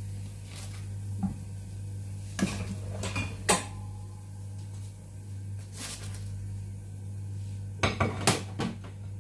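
A metal turner and other kitchen utensils knocking and clinking against a nonstick frying pan as fried bread is lifted out. There are a few scattered clinks, with clusters of sharp knocks about two and a half seconds in and again near the end.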